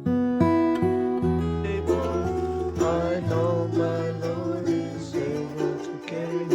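Acoustic guitar playing, plucking single notes and chords one after another at a moderate pace.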